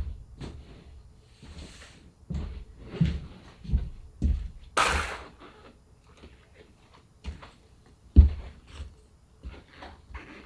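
Irregular thumps and knocks of hand work on a wooden chair frame during upholstery, with one short, sharp hissing burst about five seconds in.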